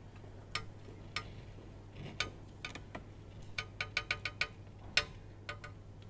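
Sparse, irregular light clicks and ticks, with a quicker run of ticks a little past the middle, over a faint steady low hum.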